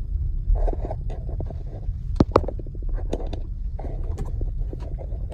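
Car rolling slowly, a steady low rumble of engine and tyres heard from inside the cabin, with scattered knocks and rattles and a couple of sharper clicks a little over two seconds in.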